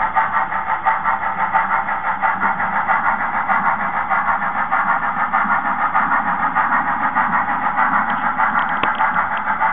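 HOn3 scale model steam train running: a steady rushing noise that pulses evenly about three or four times a second.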